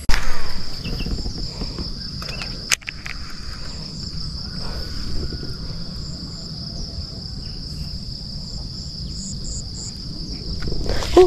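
A steady, high-pitched chorus of insects, over a low rumble. A brief loud burst of noise comes right at the start, and a single sharp click a little before three seconds in.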